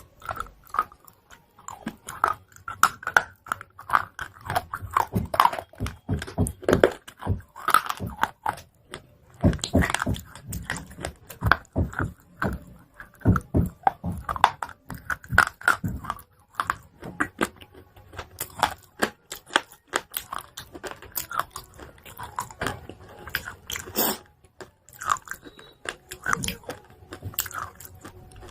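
Chalk pieces being bitten and chewed close to the microphone: a dense, irregular run of crisp crunches and crackles.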